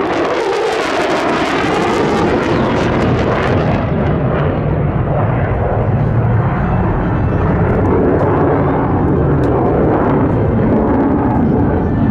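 Mitsubishi F-2 fighter flying past, the jet noise of its single turbofan engine loud and continuous, with a sweeping change of pitch in the first couple of seconds as it goes by.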